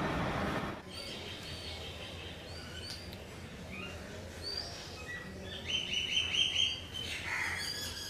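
Small birds chirping: scattered short high chirps, then a quick run of chirps about six seconds in. A steady rush of background noise cuts off abruptly under a second in.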